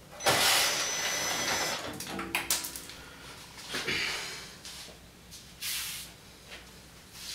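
Tool work on the T30 Torx screws that hold a UTV fender onto its frame: a grating burst of noise lasting almost two seconds near the start, then shorter bursts and scattered clicks and knocks.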